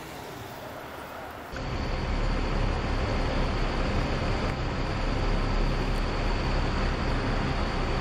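Diesel intercity coach engine running as the bus drives slowly through a turn, a steady low rumble. It comes in suddenly about a second and a half in, after a quieter stretch of street background.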